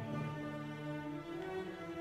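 Background music of bowed strings playing slow, long-held notes.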